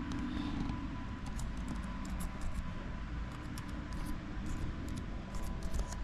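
Typing on a laptop keyboard: quick, irregular keystroke clicks starting about a second in, over a steady low background hum with a faint steady whine.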